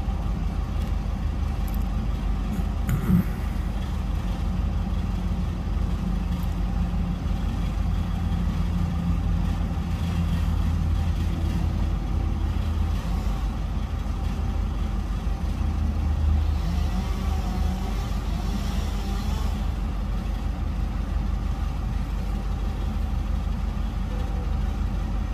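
Steady low rumble of a motor vehicle running, with a single short knock about three seconds in.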